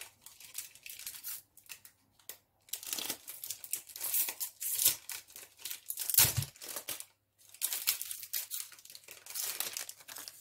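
Foil wrapper of a Pokémon Lost Origin booster pack crinkling and being torn open by hand, in a run of rustling tears. The loudest tear, with a dull bump, comes about six seconds in.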